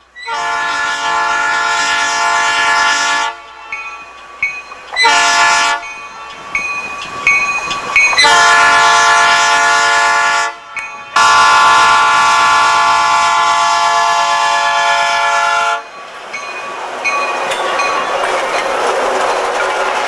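Diesel locomotive air horn sounding four blasts, each a chord of several notes: three long blasts and a short one about five seconds in. Then the locomotive passes close by with a rising rush of engine and wheel noise.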